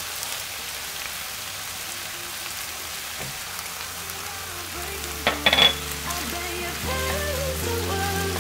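A stir-fry of webfoot octopus and cabbage sizzling in a frying pan as spatulas turn it over, with a few sharp clinks about five seconds in. Soft background music comes in over the sizzle in the second half.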